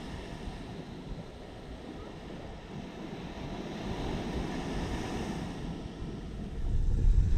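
Gentle ocean surf washing on a sandy beach, swelling briefly about four seconds in, with wind buffeting the microphone in a low rumble near the end.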